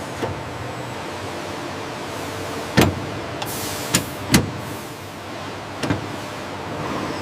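Steady factory machinery noise with a low hum, broken by four sharp knocks between about three and six seconds in, the first the loudest.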